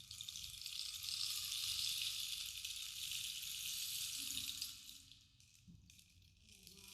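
Bamboo rainstick tipped, its filling trickling down the tube in a rain-like patter. The patter dies away about five seconds in, then starts again just before the end as the stick is turned.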